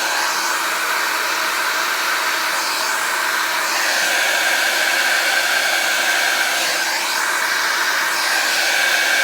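Hair dryer running continuously, a steady rush of air with a steady whine, blowing on wet acrylic paint on a canvas. Its airflow is too weak to push the paint.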